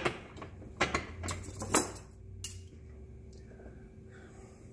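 Metal clinks and knocks of the steel parts of a tubing anchor catcher being handled, with three or four sharp knocks in the first two seconds, then only a faint click or two over a low steady hum.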